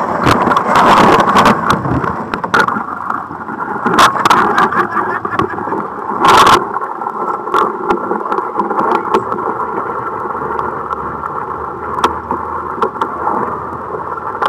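A boat's motor running steadily while the hull breaks through thick lake ice, with crunching and sharp knocks of ice against the hull. The loudest crunches come in the first two seconds, about four seconds in, and about six and a half seconds in.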